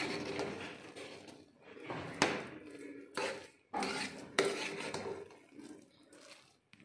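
Slotted metal spoon scraping and clinking against the inside of a metal pressure cooker as cooked rice is stirred, with several sharp knocks, the loudest about two seconds in.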